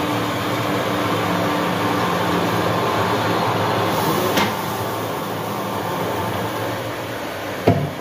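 Rice mill (paddy huller) running with a steady hum as paddy is poured by hand into its hopper. A sharp click about halfway through and a couple of knocks near the end.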